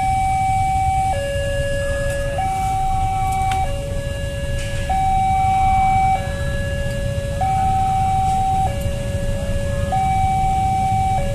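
Railway level crossing's electronic warning alarm sounding a two-tone hi-lo pattern, switching between a higher and a lower note about every second and a quarter, meaning a train is approaching and the barriers are down. Under it, the low rumble of idling cars and motorbikes waiting at the crossing.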